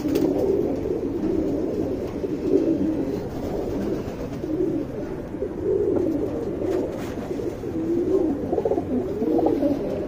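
Domestic pigeons cooing, the low calls overlapping without a break.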